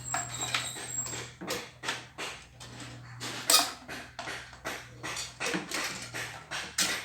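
Irregular plastic clicks and scratching, a few per second, from a turn-signal bulb holder and plastic lamp housing being handled and fitted by hand, over a steady low hum.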